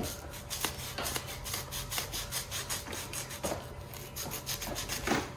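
A utility knife blade sawing through grey foam sponge in a string of short scraping strokes, the strongest near the end. The blade is not very sharp, so it drags through the foam.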